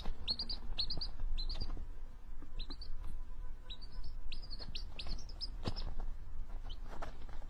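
A domestic chicken chick peeping: a string of short, high-pitched cheeps, several a second, with brief pauses between runs.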